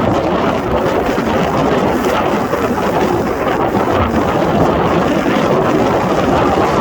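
Strong wind blowing across the microphone: a loud, steady rushing noise with no let-up.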